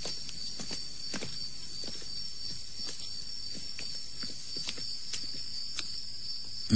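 Footsteps on stone paving, irregular steps about two a second, over a steady chirring of crickets: a radio-play sound effect of walking outdoors at night.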